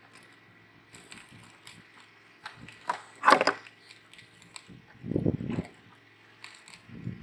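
Irregular clicks, scrapes and knocks as a stick prods a crab's hard, encrusted shell against the wooden boat deck. There is a louder scrape about three seconds in and a duller knock about five seconds in.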